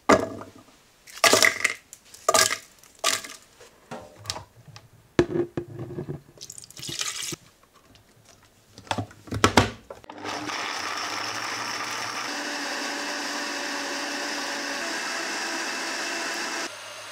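Knocks and clatters as ingredients drop into a plastic blender jar and the lid goes on. Then, about ten seconds in, a countertop blender starts and runs at a steady pitch for about six seconds, grinding five or six kinds of dried chillies into a red-brown paste.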